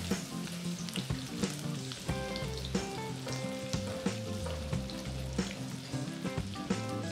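Chopped onion frying in hot oil in a nonstick karahi: a steady sizzle with many quick crackles. Background music with held notes plays along.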